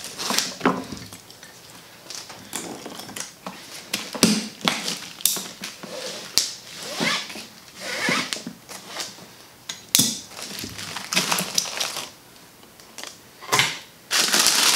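Ratchet tie-down straps being released and pulled off a glued-up wooden workpiece: irregular clacks of the ratchet buckles and rustling of webbing sliding free, with plastic sheeting crinkling and wooden blocks knocking as they are lifted off. The noise is loudest near the end.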